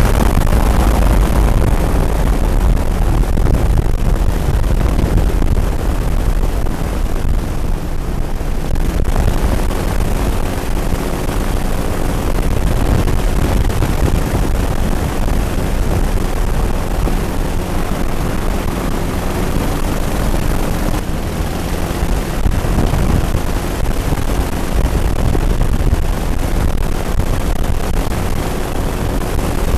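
Twin-engine airboat running under way, its engines and air propellers making a loud, steady drone.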